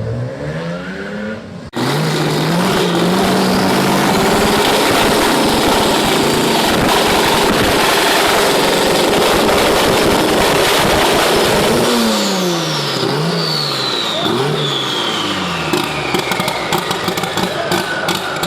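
Chevrolet Opala straight-six engine sounds: a quieter rev cuts off about two seconds in, and a loud engine follows, rising in pitch in steps as it accelerates. From about twelve seconds in it is revved up and down repeatedly while a high whistle falls slowly in pitch.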